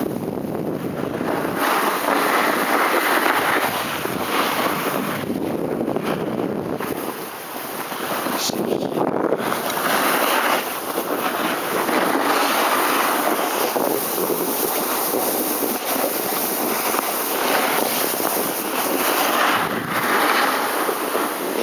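Snowboard sliding and scraping over snow on a descent, a steady rushing noise that swells and eases every few seconds, with wind buffeting the microphone.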